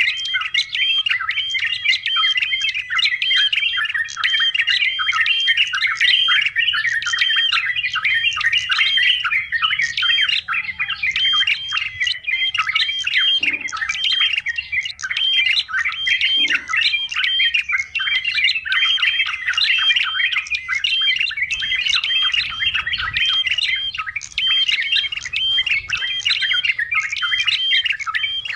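Yellow-vented bulbuls chattering noisily: a dense, unbroken stream of quick, repeated chirps, several a second.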